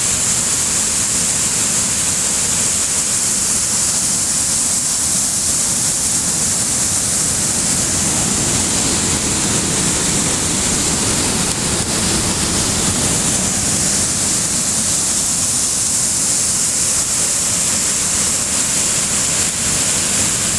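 Rushing water, a loud, steady, even rush that does not change.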